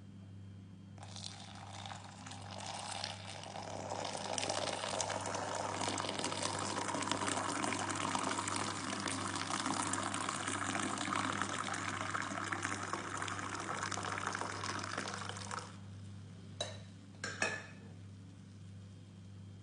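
Thick chocolate milkshake poured in a thin stream into a ceramic mug, a steady splashing pour that grows louder as the mug fills and stops after about fifteen seconds. Two short sharp sounds follow near the end.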